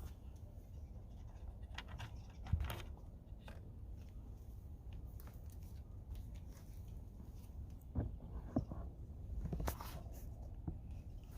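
Plastic parts of a car side-mirror turn-signal assembly being handled and fitted together: scattered clicks and knocks, loudest about two and a half seconds in and again around eight to ten seconds, over a low steady rumble.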